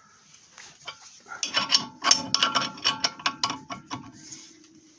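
Hand tools working on the Lada Niva's worn, knocking front ball joint: a run of quick metallic clicks with a slight ring, from about a second and a half in until nearly four seconds.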